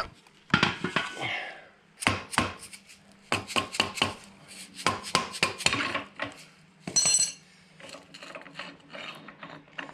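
A run of sharp metal clanks and clinks as steel front-axle parts (brake backing plate, hub and spindle) are handled and worked loose with a hand tool, with a short metallic ring about seven seconds in.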